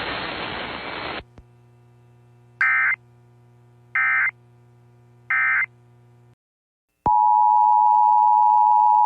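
Emergency Alert System header: a radio hiss cuts off just over a second in, then three short screeching data bursts come about a second and a half apart, and about seven seconds in a loud, steady alert tone begins, heralding the next warning.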